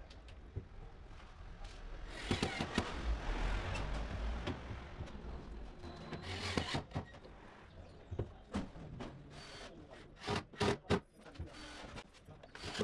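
Cordless drill-driver running in two bursts, driving screws for the plastic drawer hinge brackets into the MDF cabinet. Near the end come several sharp knocks and clicks as parts are fitted.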